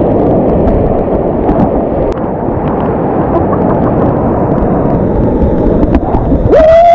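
Whitewater rushing and churning right around a kayak, a loud, steady roar of water with wind and spray buffeting the camera microphone. Near the end a person lets out a long, held yell.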